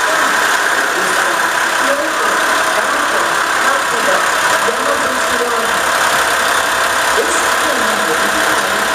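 KiHa 47 diesel railcar's engine idling, a steady, even running noise.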